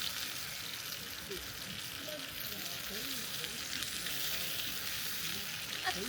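Food sizzling steadily in a hot pan on a camp stove.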